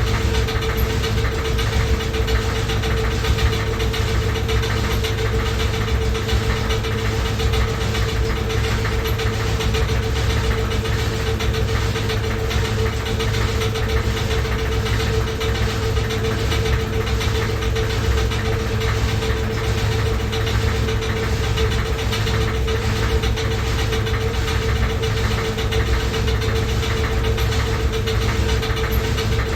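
Washing machine running loudly: a steady hum with a regular, rapid knocking.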